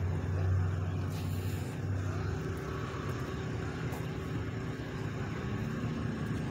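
Car engine running nearby: a low steady rumble, loudest in the first couple of seconds and then easing off.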